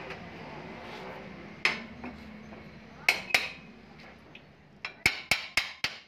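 Sharp metallic clinks and knocks as a refrigerator compressor's steel shell is handled on a metal workbench: a knock about a second and a half in, two more around three seconds, then four quick ringing taps near the end, about four a second.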